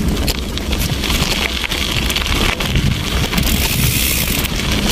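Wind buffeting the microphone, with a steady low rumble underneath and a few light clicks.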